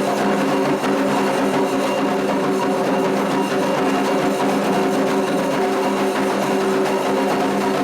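Candomblé ceremonial music: quick, dense drum percussion over several steady held notes.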